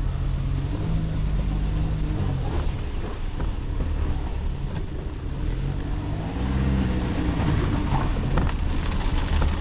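Car engine running under load as the vehicle drives off, its pitch rising and falling twice over a steady low rumble, with a few knocks near the end.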